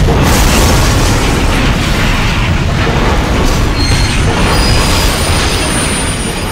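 Loud train-collision crash sound effect: a sudden boom that carries on as a heavy, steady rumble for the derailment.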